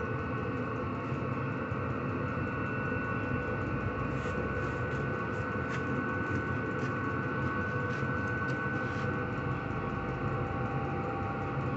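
5 kW diesel air heater running steadily after ignition: a steady blower-motor whine over a combustion hum. Its fuel pump ticks faintly about every half second through the middle.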